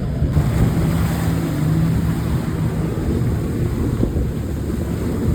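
A jet ski's engine running with heavy wind buffeting the microphone over the water. A steady engine hum shows clearly for the first few seconds, then sinks into the wind noise.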